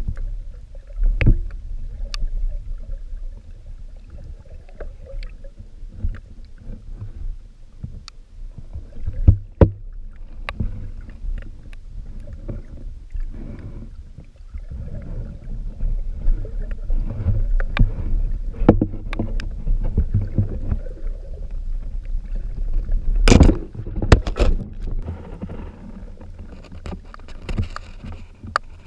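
Muffled underwater sound of a diver moving through the water: a steady low rumble of water with scattered sharp clicks and knocks. A cluster of loud knocks comes a few seconds before the end, while a lobster is being worked into a hand net.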